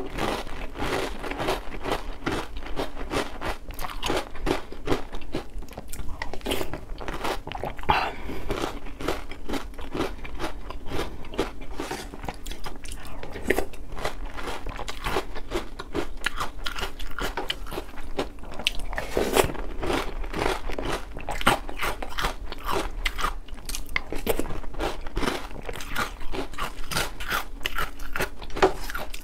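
Close-up chewing of Oreo O's cereal with milk: crisp chocolate cereal rings crunched between the teeth in quick, continuous bites.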